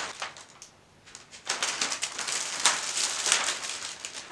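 Plastic mirror film crinkling and rustling as its backing is peeled off and the sheet is handled over a glass pane, starting about a second and a half in.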